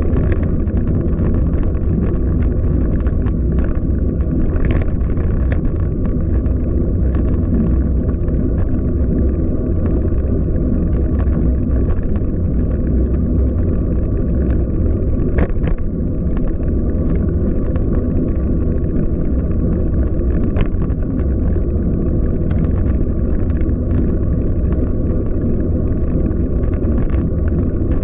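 Steady low rumble of wind buffeting the microphone and tyres rolling on city streets while riding a bicycle, with scattered light clicks and rattles.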